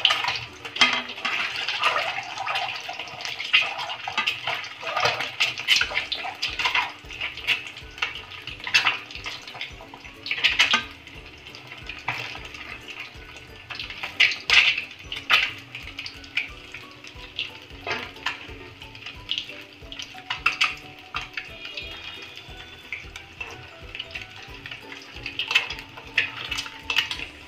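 Whole boiled eggs frying in hot oil in a steel kadhai: a steady sizzle with crackling spatters. Every so often a steel spoon clinks and scrapes against the pan as oil is spooned over the eggs.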